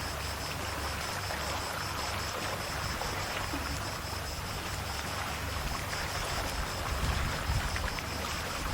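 Calm sea lapping gently at the shore: a steady wash with small trickles and splashes. Low wind rumble on the microphone builds near the end.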